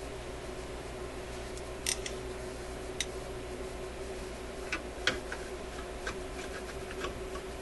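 Scattered small metallic clicks and taps of a hand tool being worked against screws and sheet metal inside a radio chassis, irregular and a few at a time, over a steady hum.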